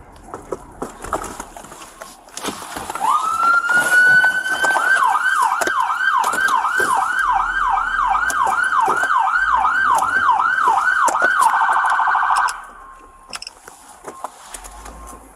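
Police car siren: it winds up in pitch, then switches to a fast repeating yelp of about two to three sweeps a second, breaks into a quicker warble, and cuts off suddenly a little before the end.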